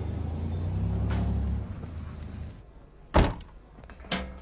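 Low, steady rumble of a car's cabin on the move, which fades out before the middle. Then come two loud thuds about a second apart: car doors being shut.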